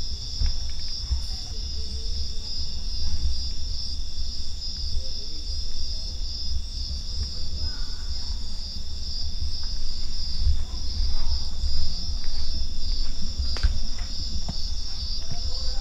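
A night-time insect chorus of crickets: a steady, shrill trilling in two high pitches, over a constant low rumble.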